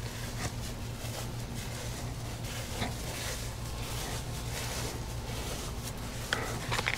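Quiet outdoor background: a steady low hum with faint scattered rustles and clicks, a few sharper clicks near the end.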